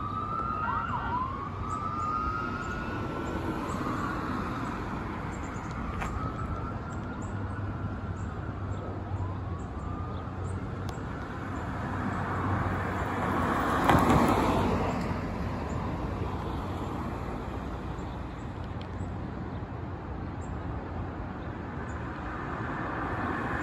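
Fire engine siren wailing in long rising and falling sweeps, fading out after about ten seconds, over passing road traffic. A car passes close, loudest about two-thirds of the way through.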